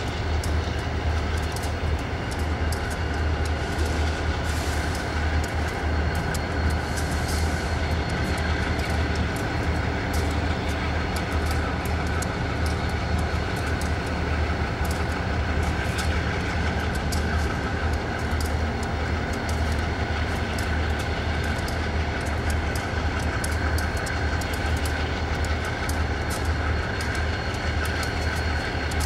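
Diesel locomotive running slowly at low revs, its engine giving a steady deep hum, with scattered light clicks.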